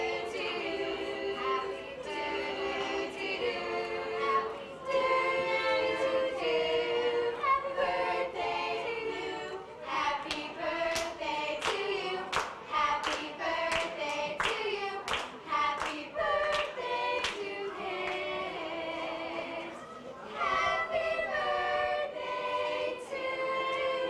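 A group of girls singing a song together. For several seconds in the middle, steady hand claps keep time along with the singing, about two a second.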